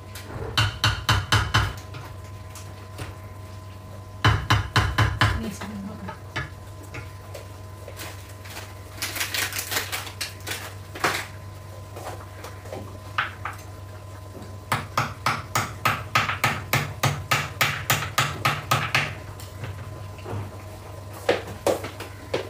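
Rapid knocking of kitchen utensils, about five or six strikes a second, in four runs of one to four seconds each; the first two runs have heavier thuds. A steady low hum runs underneath.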